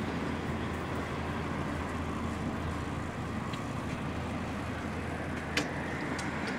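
Diesel engine of a parked Van Hool TD921 Altano double-decker coach idling with a steady low hum. A single sharp click comes about five and a half seconds in.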